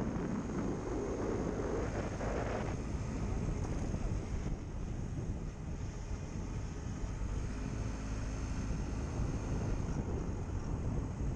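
Riding noise from a camera on a moving motorbike: wind buffeting the microphone over a steady low rumble of engine and road. A louder rush of wind fills the first couple of seconds and drops away suddenly, and a faint steady high whine runs underneath.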